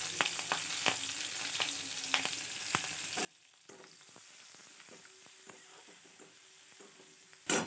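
Chopped garlic, nigella seeds and green chillies sizzling in hot oil in a kadai, with a metal spatula scraping and tapping against the pan. About three seconds in, the sizzle drops suddenly to a faint level with only a few faint scrapes. A short loud burst of sizzle comes back just before the end.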